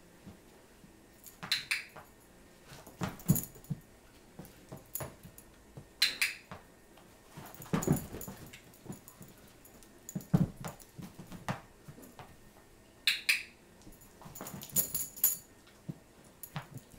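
A training clicker clicks three times, each a quick double click, marking moments in clicker shaping. Between the clicks come thumps and scuffles from a large dog moving about on the carpet and knocking a fabric box around.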